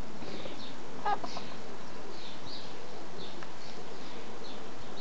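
Birds chirping: short high calls, a couple each second, over a steady outdoor hiss, with a brief rattling call about a second in.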